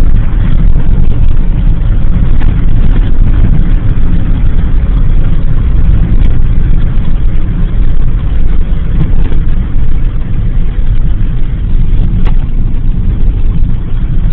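Loud steady low rumble of a car driving, heard from inside the cabin: road and engine noise with a fainter hiss above it.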